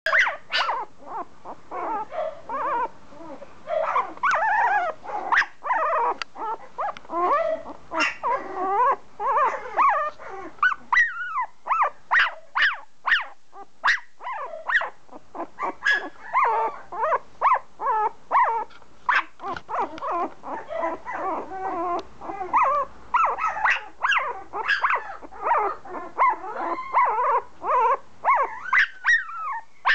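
Very young puppy whimpering and yelping, a continuous string of short, squeaky, wavering cries.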